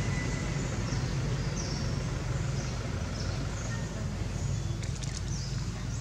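Steady background noise with a low hum, and a few faint, short, high chirps scattered through it.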